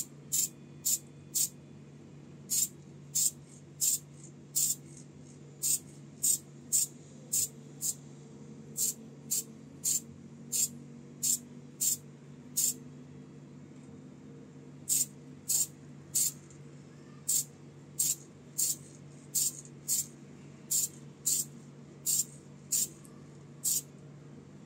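Aerosol can of clear gloss lacquer sprayed in many short bursts, about two a second, with a pause of about two seconds about halfway through. A steady low hum runs underneath.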